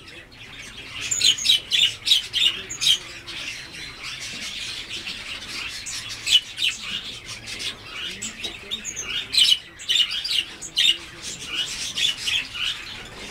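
Blue whistling thrush giving repeated short, high, harsh calls in quick clusters, with brief pauses between the clusters.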